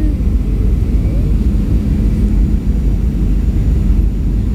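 Steady jet airliner cabin noise: a constant low rumble of the engines and airflow heard from inside the passenger cabin.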